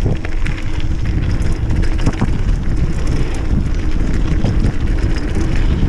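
Wind buffeting an action camera's microphone while a mountain bike rolls fast down a dirt trail, with steady tyre rumble and scattered short knocks and rattles from the bike over rough ground.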